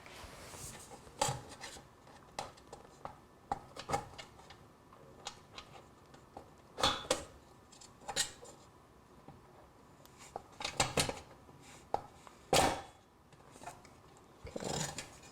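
Irregular clicks, taps and short scrapes of needle-nose pliers working on metal, as the white wire connectors are pulled off the thermal switch inside the water distiller's base. The sharpest click comes near the end.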